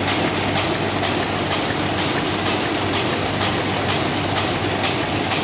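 F.L. Smithe envelope-making machine running in production: a steady mechanical clatter with a fast, even rhythm over a low hum.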